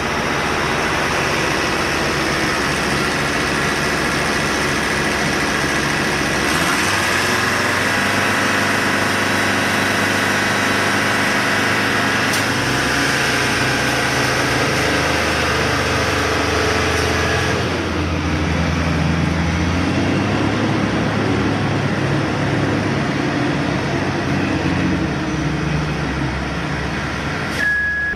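Heavy road-construction machinery engine running steadily, with the engine note rising about six seconds in and dropping back down around eighteen seconds.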